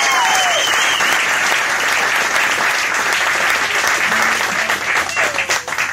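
Audience applauding, with a whistle and cheering shouts in the first second; the applause thins to scattered claps near the end.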